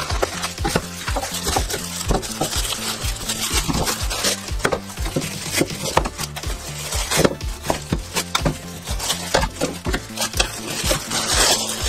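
Plastic bags and foam wrap crinkling, with quick-release bar clamps clicking and clattering on a wooden workbench as they are unwrapped. Background music with a repeating bass line plays underneath.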